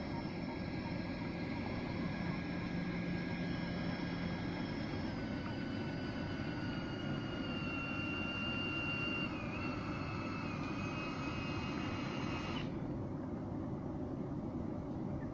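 Steady high whine of a homemade battery-powered float-tube thruster with a four-blade aluminium propeller, its pitch sagging slightly as it runs. It cuts off suddenly about 12 seconds in, leaving a steady low rushing noise.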